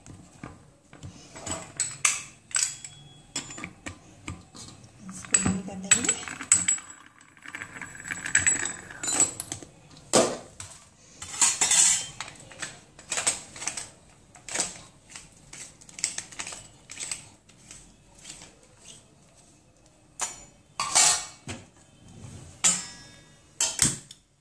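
Stainless steel kitchen utensils and dishes clinking and clattering against each other in irregular sharp knocks.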